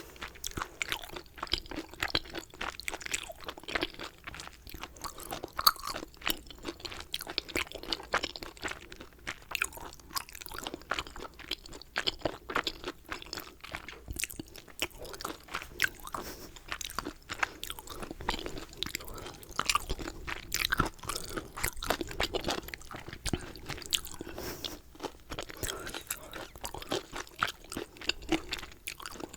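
A person chewing a meal of dumplings and tteokbokki close to the microphone: a continuous run of small wet clicks and crunches.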